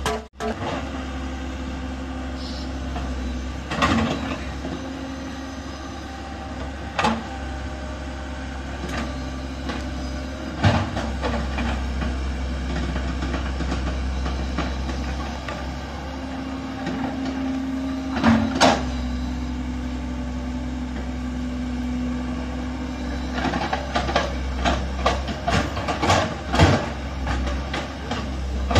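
Komatsu PC130 hydraulic excavator's diesel engine running steadily as it digs, with occasional sharp clanks and knocks from the working machine, several in quick succession near the end.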